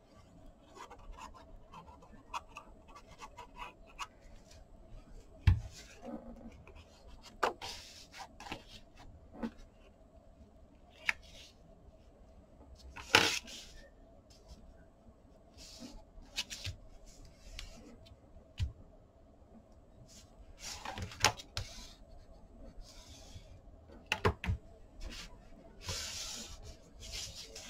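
Kraft cardstock being handled and pressed down by hand on a cutting mat: scattered light taps and paper rustles with a few sharper knocks, then a cloth rubbing over the glued paper near the end.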